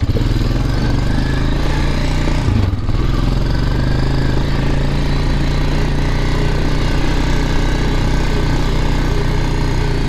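Honda quad bike (ATV) engine running steadily as it is ridden off, freshly started after standing unused for a while. The engine note dips briefly a little under three seconds in.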